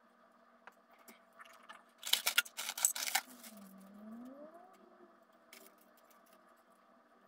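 Metal chain links jangling and clinking against a wire cage as a plastic basket is hung from them: a dense rattle lasting about a second, with a few lone clicks around it.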